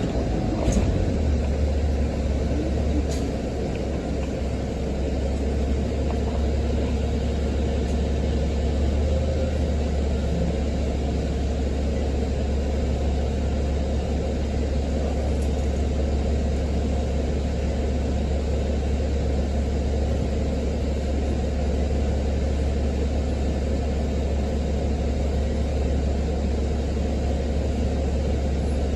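City bus running, a steady low rumble with a faint steady hum, and a few light clicks right at the start.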